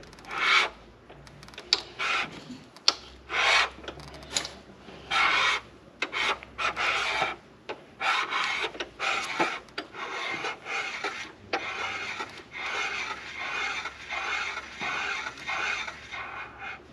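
Hand-turned counterbore cutter scraping metal as it cuts a cylinder liner counterbore into a CAT 3406E diesel block, taking a light two-thousandths pass. Separate scraping strokes at first, then nearly continuous rasping from about halfway.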